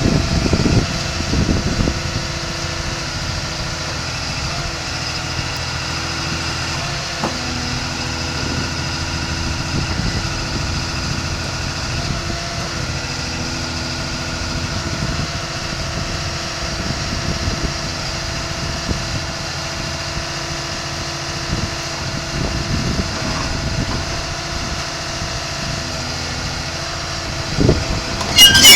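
Komatsu D61PXI-23 crawler dozer's diesel engine idling steadily. Near the end come several loud, sharp squeals and metallic clanks.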